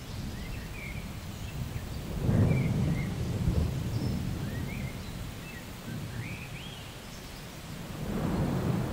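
Low rumble of distant thunder, swelling about two seconds in and again near the end, with short high chirps scattered over it.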